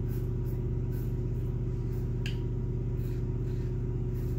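A steady low mechanical hum, with faint short scratches of a Wolfman WR-2 double-edge safety razor cutting stubble against the grain on the neck, about two strokes a second.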